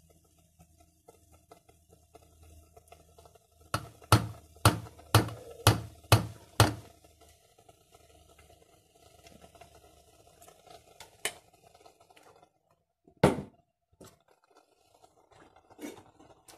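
Metal ladle knocking against stainless steel cookware while sauce is ladled out: a run of about seven sharp clinks roughly twice a second, then a few single knocks later, the one near the end the loudest.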